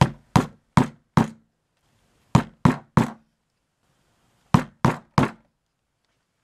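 A mallet striking a pricking iron held upright on leather over a stone work surface, punching stitching holes. Ten sharp knocks come in three quick runs of four, three and three, about three blows a second within each run.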